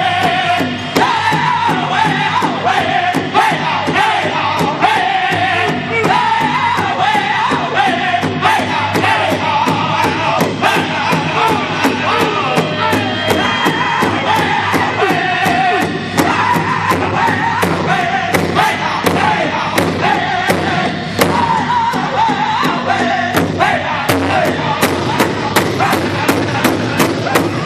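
Powwow drum group singing together in high voices over a large shared drum that several singers strike in a steady, even beat.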